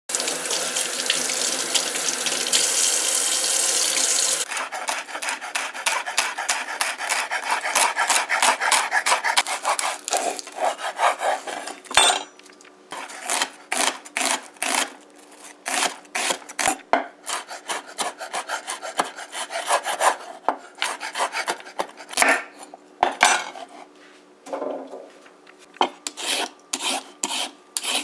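Kitchen knife chopping vegetables on a wooden cutting board: a fast dense run of cuts at first, then separate strokes at an uneven pace. Near the end a vegetable peeler scrapes along a carrot at about two strokes a second.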